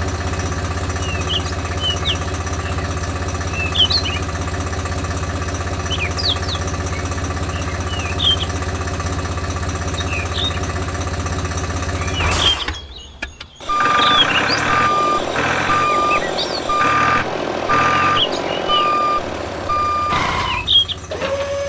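A steady motor hum with birds chirping over it. After a cut, a vehicle reversing alarm beeps about once a second over engine noise for about six seconds.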